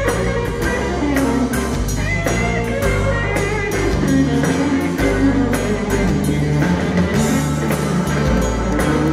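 Stratocaster-style electric guitar playing a lead solo with bent notes, over a live blues band's drums and bass.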